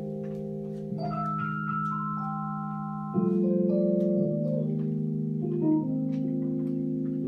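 Improvised music of sustained, organ-like keyboard chords, held steady and shifting to new chords about a second in and again about three seconds in, where it gets louder.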